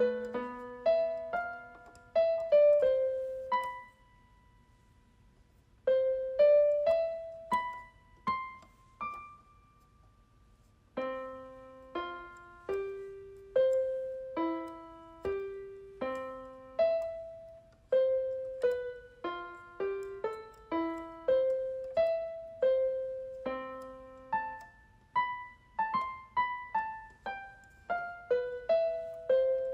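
Solo piano music: single notes played one at a time in slow, halting phrases, each note fading out, with a few seconds' pause twice before the playing resumes.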